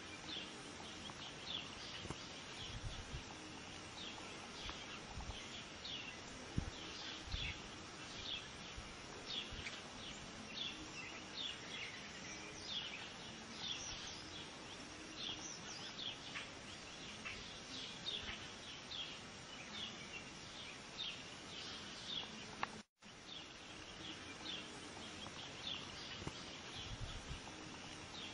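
Small birds chirping over and over in short notes against a steady hiss of outdoor background noise, with a few soft low thumps and a momentary dropout about two-thirds of the way through.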